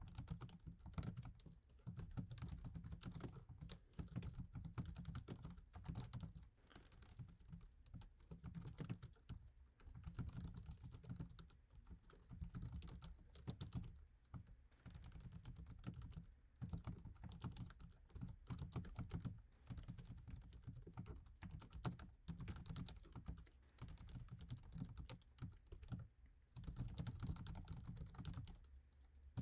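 Continuous typing on an iMac's standard Apple keyboard: a fast run of soft low-travel key clicks, broken by a few brief pauses, the longest near the end.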